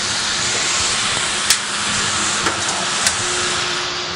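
Steady rushing hiss of a running cooling tower's fan air and falling water, with a faint low hum under it. A few short sharp clicks break through it.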